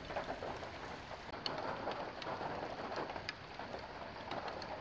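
Rain falling steadily, with many small sharp ticks of individual drops striking a surface.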